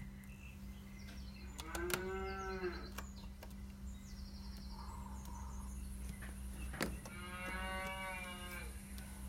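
Cattle mooing twice, two drawn-out calls a few seconds apart, over a steady low hum with a few sharp clicks.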